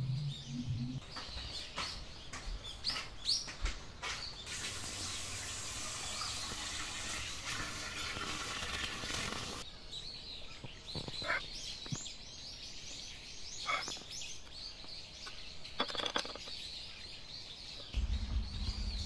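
Small birds chirping and calling over and over in the background. A steady hiss runs for about five seconds in the first half, and a few light clicks come later on.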